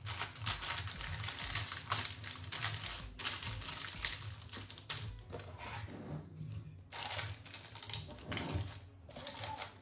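A sheet of paper crinkling and rustling as it is pressed down by hand onto ice cream mixture in a plastic food container, then the container's plastic lid being set on.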